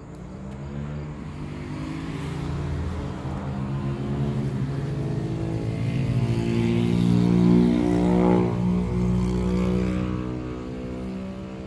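An engine passing by: a steady, pitched drone that grows louder, is loudest about eight seconds in, then fades.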